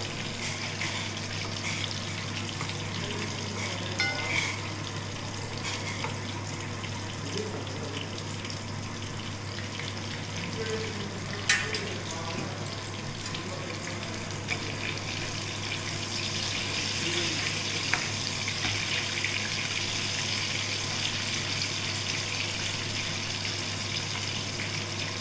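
Gram-flour-battered green chillies (mirchi bajji) deep-frying in hot oil: a steady sizzle that grows a little louder in the second half, with a few sharp clicks.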